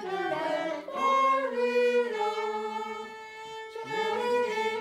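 Solo violin played by a young child: slow bowed notes, with one long held note in the middle before the melody moves on.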